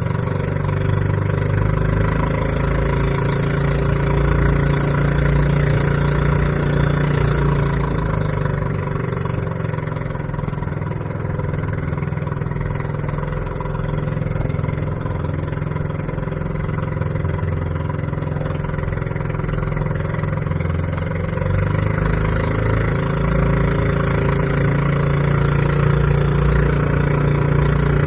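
Boat engine running steadily under way, its pitch holding level, with a little rise in loudness about three quarters of the way in.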